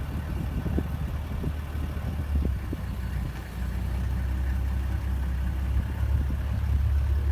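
Vehicle engine idling with a steady low hum, a little louder from about halfway through, and a few faint low knocks in the first few seconds.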